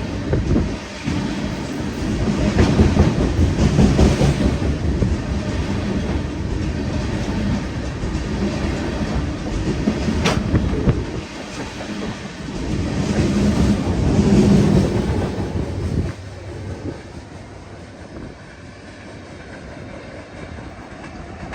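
Freight train cars rolling past, wheels clattering over the rail joints, with one sharp clank about ten seconds in. The noise drops off suddenly about sixteen seconds in as the end of the train goes by, leaving a quieter rumble.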